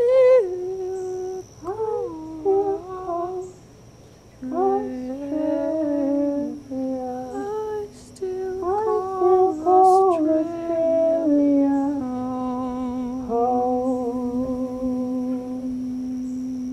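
A woman humming a slow, wordless melody that wavers and glides, with a long low note held steadily beneath it from about four seconds in.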